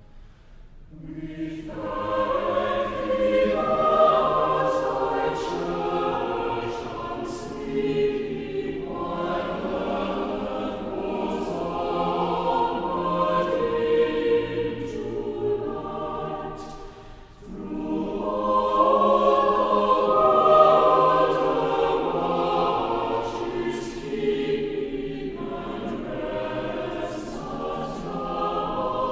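Choir singing in phrases, starting about a second in, with short breaths about 8 and 17 seconds in.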